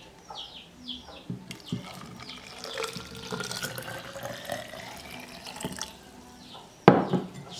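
Hot water being poured into a plastic bottle, the pitch of the filling rising steadily as the bottle fills. A single sharp knock near the end.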